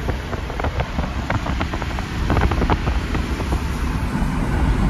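Cabin noise of an old car on the move with its windows open: a steady low engine and road rumble, wind across the microphone, and many small rattling clicks.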